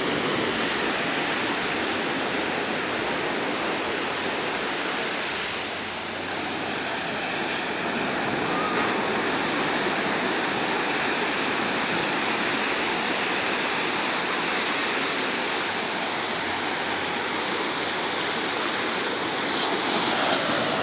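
Sea surf washing onto the shore: a steady hiss of water, with a short lull about six seconds in.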